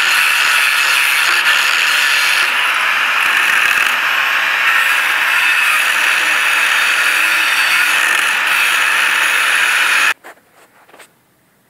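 Electric angle grinder's disc grinding steel, a loud, steady grinding noise that cuts off suddenly about ten seconds in, followed by a few faint clicks.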